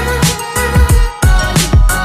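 Background hip hop style music with a steady beat and bass drum hits.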